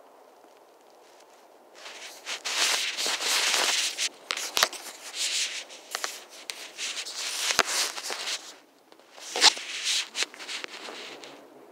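Handling noise: fabric rubbing and scraping over the phone's microphone in loud bursts, with a few sharp clicks and knocks, then quieter near the end.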